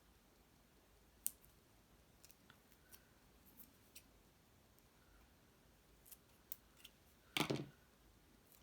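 Scissors cutting foam tape squares: a few light clicks, then one longer, louder snip about seven seconds in.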